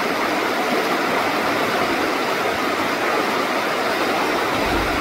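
Fast-running river: a steady rush of water. A low rumble comes in near the end.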